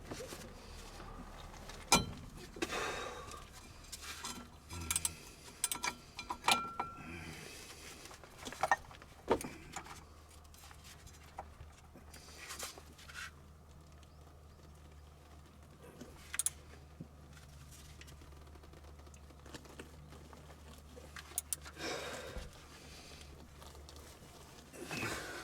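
Scattered metallic clinks, clicks and knocks of hand tools and parts being handled during an oil change, busiest in the first several seconds, then a quieter stretch with a few clinks near the end.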